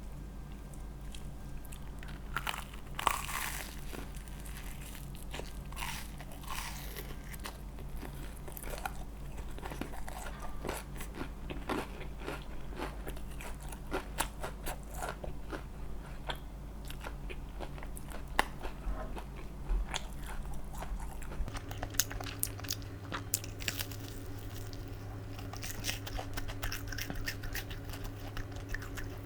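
Close-miked eating: repeated bites and chewing of crunchy food, heard as irregular crisp clicks and crackles. A steady low hum sits underneath and changes about twenty seconds in.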